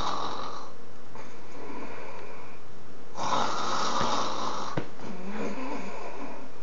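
A person snoring: a long snore ending about half a second in, a quieter breath, then another long snore from about three to nearly five seconds in.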